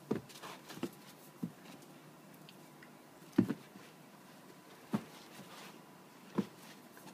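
Two dogs play-fighting, giving about six short sharp sounds at uneven intervals. The loudest comes about three and a half seconds in.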